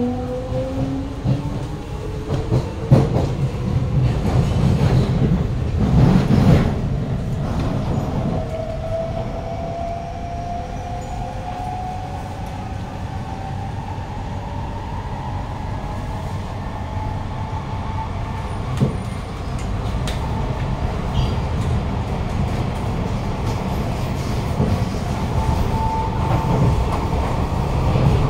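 Kawasaki-CRRC Sifang C151A metro train heard from inside the car as it accelerates: the echoey traction-motor whine rises steadily in pitch over the rumble of wheels on rail. The rumble swells briefly louder about six seconds in.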